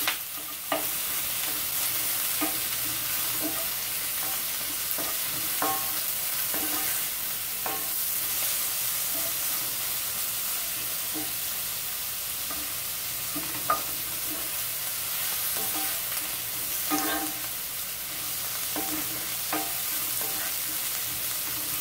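Sliced onions sizzling in butter in a hot cast-iron skillet, a steady frying hiss. A wooden spoon scrapes and taps against the pan now and then as the onions are stirred.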